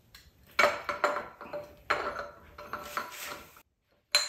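Heated synchro hub and locking collar being slid by hand down the splined steel output shaft of a Graziano L140 transmission: a series of metallic clinks and scrapes with a ringing tone, then a short click near the end. The heated parts go onto the splines without needing the press.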